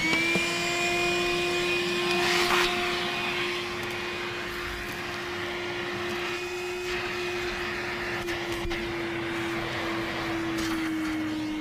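DeWalt cordless shop vacuum running at a steady pitch as its hose sucks dirt off a cloth car seat, with a short louder rush of air about two and a half seconds in. Near the end the motor's pitch sags slightly as the battery runs down.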